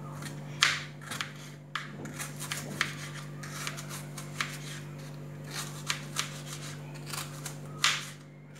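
Kitchen knife slicing a red onion on a wooden cutting board: a run of uneven taps and crisp cuts as the blade goes through the onion and meets the board, the sharpest about half a second in and near the end.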